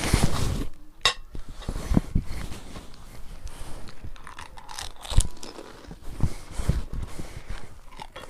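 Someone eating fuchka (panipuri) close to the microphone: crisp puri shells crunching and wet chewing, in irregular clicks and knocks.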